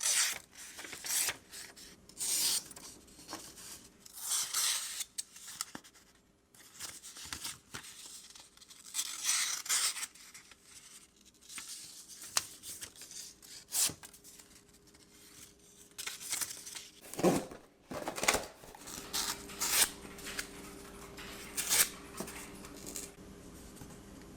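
TRIVISA Hummingbird folding knife's 14C28N steel blade cutting through material in a series of separate strokes, some sharp and brief, some drawn out over a second or so.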